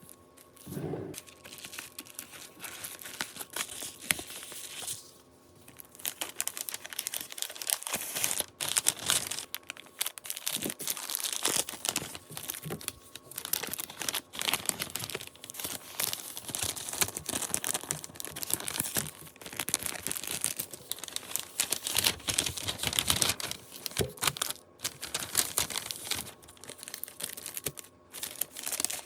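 Packing materials crinkling and rustling as they are handled and folded, with scratchy tearing sounds mixed in; a brief lull about five seconds in.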